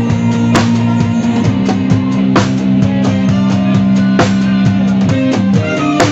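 A dangdut band playing live, led by a drum kit. Quick drum hits run over a bass line and held chords that change about a second in, with a cymbal-like crash roughly every two seconds.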